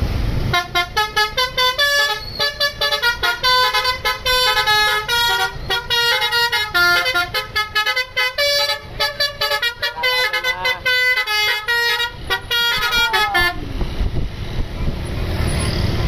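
Basuri telolet musical horn on an ABS Trans coach playing a fast melody of many short notes for about thirteen seconds. Near the end a few notes bend down in pitch, then the horn stops and only the coach's running engine is left.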